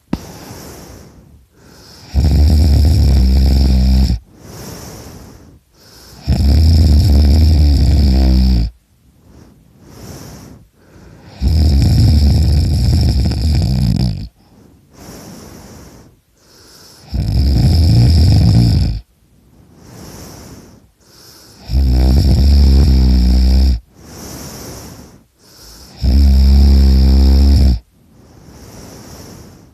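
A sleeping man snoring extremely loudly: six long, low snores, one about every four to five seconds, with quieter breathing between them.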